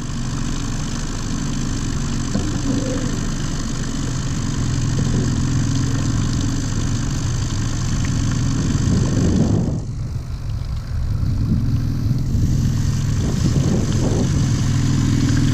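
Boat motor idling steadily, a constant low hum that dips briefly about ten seconds in.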